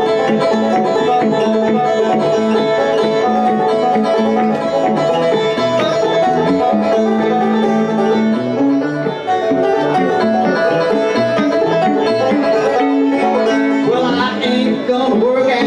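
Banjo and electric guitar playing a bluegrass tune together as an instrumental passage without singing.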